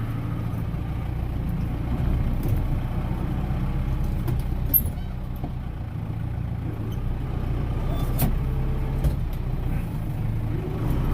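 Tractor engine running steadily under working load, heard from the driver's seat, with a few short knocks as the rock bucket works.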